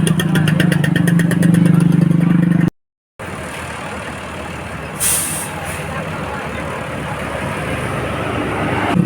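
Heavy road-vehicle noise beside a road: a loud steady low drone with a fast even ticking that cuts off abruptly about a third of the way in, then steady traffic noise with a short sharp hiss about five seconds in, like a bus or truck air brake releasing.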